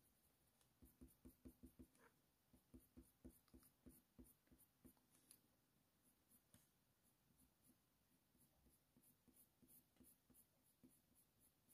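Very faint, quick strokes of a Faber-Castell Polychromos colour pencil shading on hot-press watercolour paper, near silence otherwise.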